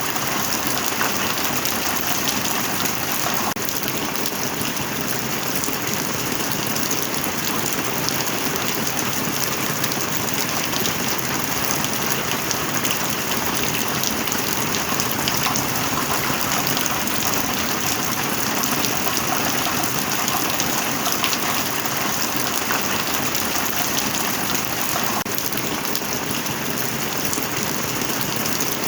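Steady heavy rain pattering densely on a metal roof, an even hiss with many fine drop impacts.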